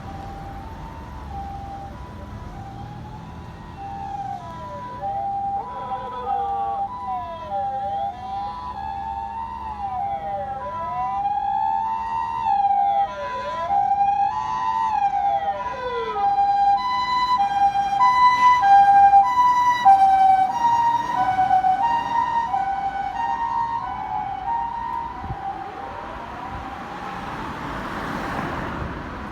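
Japanese ambulance's electronic two-tone "pee-po" siren on an emergency run, with a rising-and-falling wail layered over it for roughly the first half. It grows louder as the ambulance approaches, drops slightly in pitch as it passes, then fades away.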